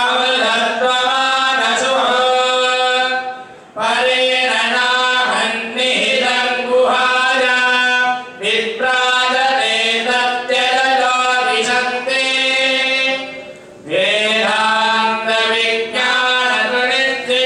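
Voices singing a devotional hymn in long held phrases, chant-like, with short breaks about three and a half seconds in and again near thirteen and a half seconds.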